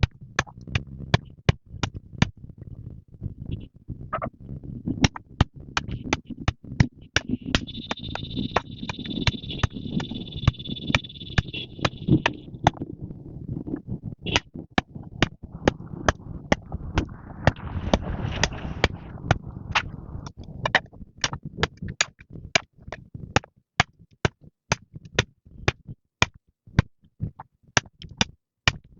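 Rapid, evenly paced sharp strikes of a hand tool, about two to three a second, over a low scraping rumble. A steady high-pitched buzz is held for a few seconds near the middle.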